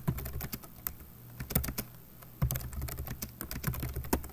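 Typing on a computer keyboard: quick, irregular clusters of key clicks, with a brief pause about halfway through.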